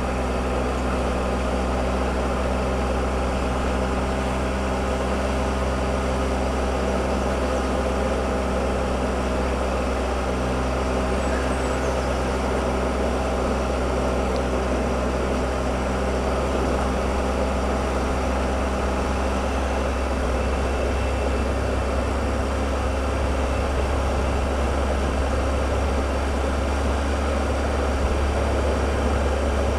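Triumph Explorer motorcycle engine running at a steady engine speed, its hum holding level under a steady rush of noise.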